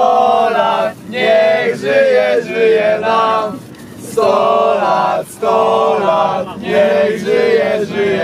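A group of men singing and chanting together in short phrases, over the steady low hum of a moving coach.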